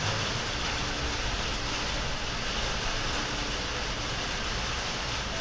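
Steady rain hiss with a few faint, soft piano notes over it: a rain-and-piano ambience.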